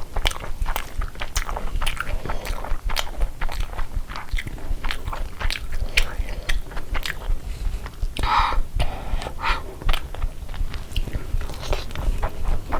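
A person biting and chewing crunchy food, with many sharp, quick crunches.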